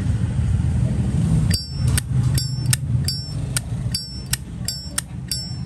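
Zippo lighter lid flipped open and snapped shut over and over, starting about one and a half seconds in: sharp metallic clicks, each with a bright ringing ping, about three a second. A steady low hum runs underneath.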